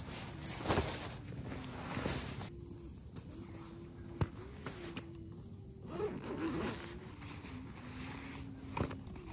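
Faint rustling and handling sounds with a few sharp clicks, over a background of short trains of high, evenly spaced insect chirps and a faint low wavering hum.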